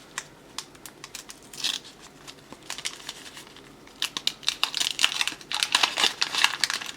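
Cardboard hockey cards and their wax-paper pack being handled: scattered light clicks, then a dense run of crinkling and card-sliding from about four seconds in.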